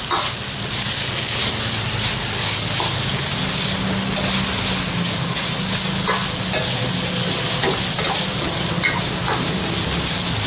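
Chopped green-chili and salted-fish sambal sizzling in oil in a stainless-steel wok while a steel spatula stirs it, with scrapes of the spatula against the wok now and then. A low steady hum runs underneath.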